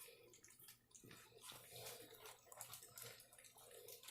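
Several puppies faintly lapping and smacking at soft weaning food in a bowl: a run of small, wet clicks.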